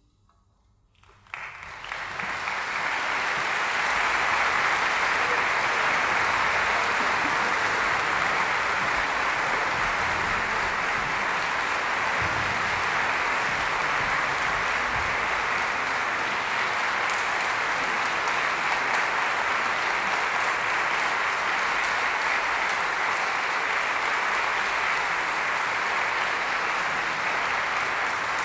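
A moment of near silence after the final note, then about a second in an audience breaks into applause that quickly builds and holds steady.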